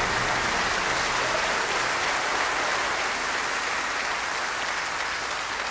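Congregation applauding, the clapping slowly dying down.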